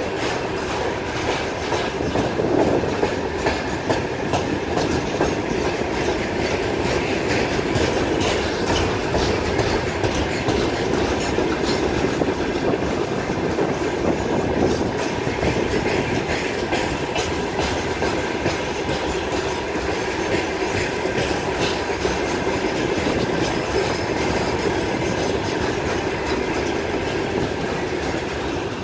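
Freight train of rail tank wagons rolling past close by, wheels clicking over the rail joints over a steady rumble.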